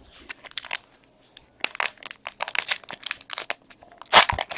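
Foil trading-card pack wrapper crinkling as it is picked up and handled, in short irregular crackles, with louder crinkling about four seconds in as it is worked open.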